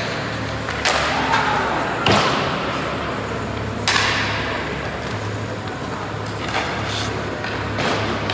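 Hockey pucks being shot at a goalie: several sharp cracks of stick on puck and thuds of puck on pads and boards, the loudest about four seconds in, ringing out in the hall of the ice rink over a steady low hum.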